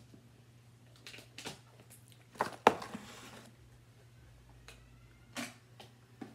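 A few short, sharp crackles and clicks of chip bags and potato chips being handled, the loudest about two and a half seconds in with a short rustle after it, over a low steady hum.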